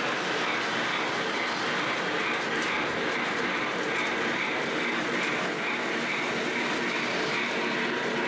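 Lionel O-gauge model trains running: two EM-1 steam locomotives pulling a very long string of freight cars, their wheels rolling steadily on the track.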